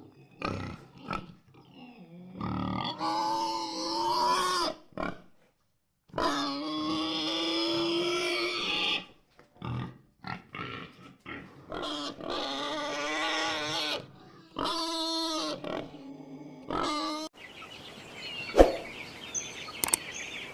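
Pigs squealing and grunting: several long, high squeals of one to three seconds each, with short grunts between them. Near the end it turns to a quieter noisy stretch with one sharp knock.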